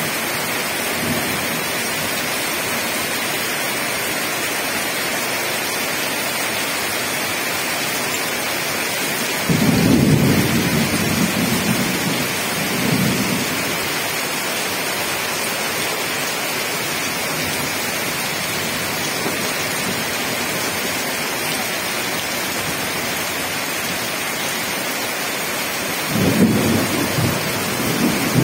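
Heavy rain falling steadily, with two rolls of thunder: the first about a third of the way in, rumbling for several seconds, the second near the end.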